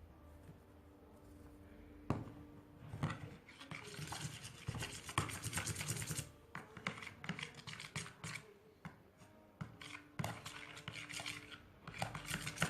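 A stirring utensil scraping and stirring a thick glue-and-cream slime mixture in a container, in quick irregular strokes that start about two seconds in.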